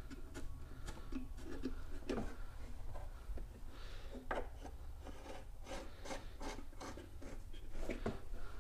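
Hands working a small combination wrench on a taillight stud and handling the hard plastic taillight housing: scattered light clicks, knocks and rubbing of metal and plastic as the studs are fitted.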